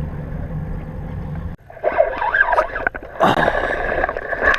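Boat motor running steadily under way, cutting off abruptly about a second and a half in. Then come wavering, gliding high tones and a few scrapes and clicks.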